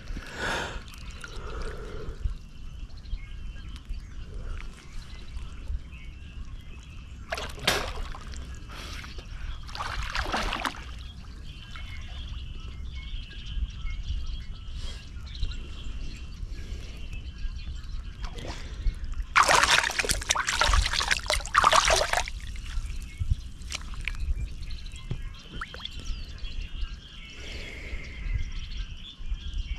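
Water splashing and trickling, with a few separate louder splashes and one longer, louder bout of splashing about two-thirds of the way through.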